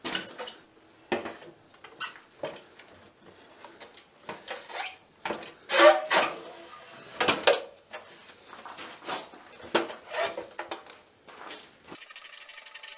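Clunks, knocks and scraping of an Evolution R355 chop saw being set onto a steel work stand and shifted into place between its mounting clamps, with the loudest clunks midway through.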